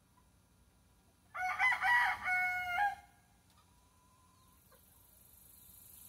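A gamefowl rooster crowing once, starting a little over a second in and lasting under two seconds; the crow steps through a few pitches and ends on a held note.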